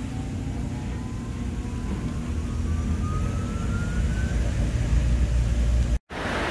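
Automatic car wash machinery running: a steady low rumble under the spray, with a faint whine rising in pitch over the first four seconds or so and the rumble growing louder. It cuts off abruptly near the end.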